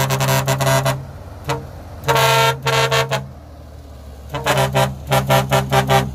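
A vehicle horn sounding in short toots at one steady pitch: a fast run of toots that stops about a second in, one longer blast around two seconds in, then another quick run of about three or four toots a second near the end. A low engine rumble runs underneath.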